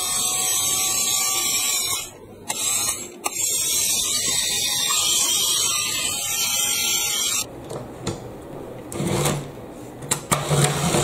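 Toy locomotive's small electric motor and plastic gears whirring steadily at high speed as its wheels spin freely in the air, with brief breaks about two and three seconds in. The whir cuts off about seven and a half seconds in, followed by a few plastic clicks and knocks.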